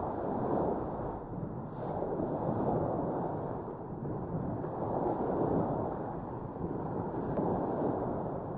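Small waves washing onto a sandy beach, swelling and fading every two to three seconds, with wind rumbling on the microphone.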